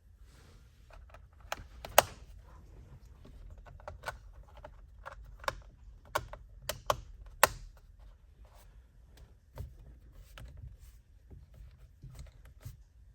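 Irregular plastic clicks and light knocks as trim tabs are pressed into place around newly fitted steering-wheel cruise control switches, the sharpest about two seconds and seven and a half seconds in, over a low steady hum.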